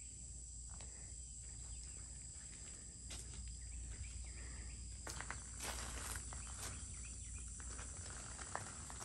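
Outdoor ambience: insects droning steadily at a high pitch over a low hum, with scattered light clicks and scuffs.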